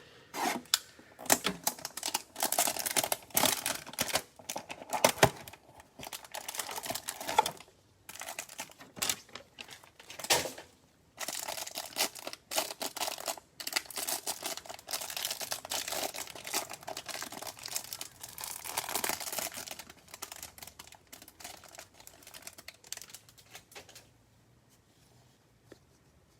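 Basketball card packs being torn open, with foil wrappers crinkling and crackling and cards handled. The tearing and crinkling carries on for about 24 seconds, then stops.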